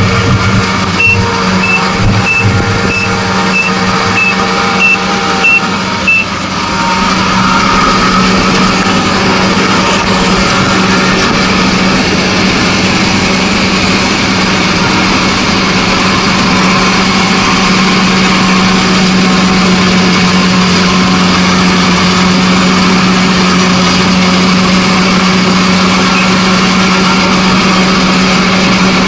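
Kubota ANR460 combine harvester running steadily under load while reaping lodged rice: a constant hum over the dense noise of the engine and threshing machinery. During the first six seconds a short high electronic beep repeats about every two-thirds of a second, then stops.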